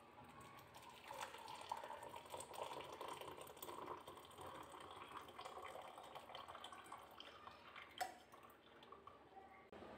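Hot milky tea poured through a tea strainer into a ceramic mug: a quiet, steady trickling stream, with a single sharp tap about eight seconds in.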